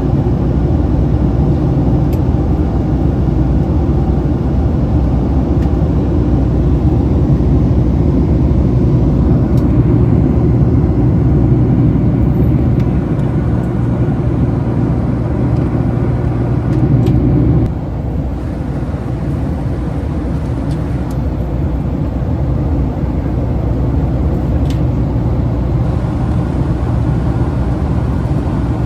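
Steady, loud low rumble of a moving vehicle. The deep part of the rumble drops off abruptly about two-thirds of the way through.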